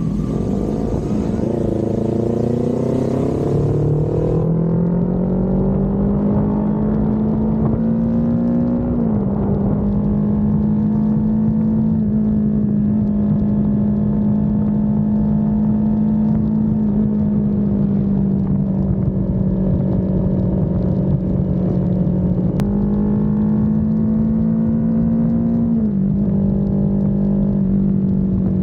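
Kawasaki Z400's parallel-twin engine under way, the revs climbing for the first eight seconds, then dropping sharply with a gear change and holding steady at cruise. About three-quarters through the revs jump up suddenly and drop back a few seconds later.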